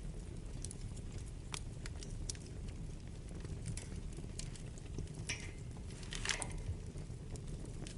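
Wood fire burning in a fireplace: a steady low rumble of the flames with scattered sharp crackles and pops, two short clusters of crackling a little past the middle.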